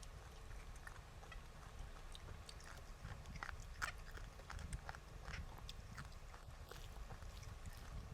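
Close-miked chewing and eating: scattered small wet clicks and smacks over a steady low hum.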